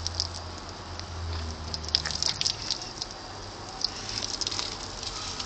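Lawn sprinkler spray pattering onto grass, with irregular sharp clicks and splashes throughout. A low rumble runs under it for the first two seconds or so.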